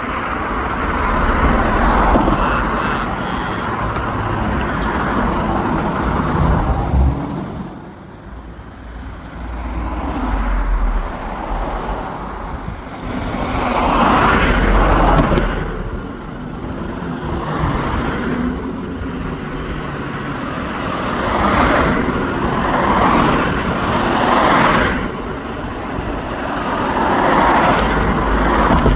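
Road traffic: a string of cars passing one after another, the tyre and engine noise swelling and fading with each, over a low rumble.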